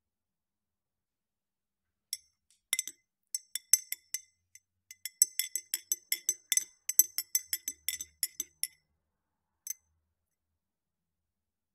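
Metal teaspoon stirring in a ridged drinking glass, clinking against the glass with a brief high ring on each strike. A quick run of many clinks starts about two seconds in and goes on for about six seconds, then one lone clink comes near the end.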